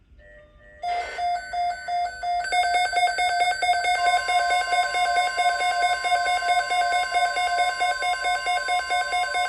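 Midland NOAA weather radio receiver's alert alarm going off, a loud rapidly pulsing electronic beep of several tones, set off by an incoming weather alert. About four seconds in, a faint steady tone near 1 kHz joins underneath: the broadcast's 1050 Hz warning alarm tone.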